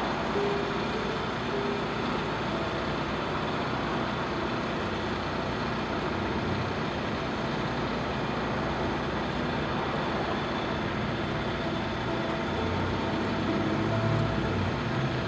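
Steady outdoor traffic rumble and hiss, with a low rumble swelling slightly near the end.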